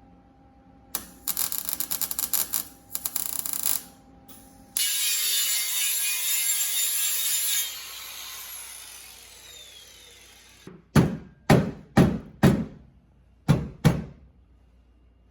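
Short crackling bursts of an arc welder laying tack welds on a steel plate, then a power tool runs for about three seconds and spins down with a falling whine. Near the end come six sharp hammer blows on metal.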